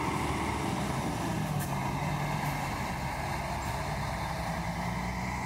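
Three-axle intercity coach's diesel engine running steadily as the coach passes close by and pulls away, easing slightly near the end.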